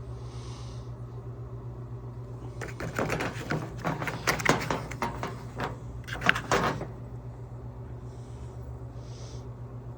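A few seconds of clattering and knocking, with a loud knock near the middle and another a little later, over a steady low hum.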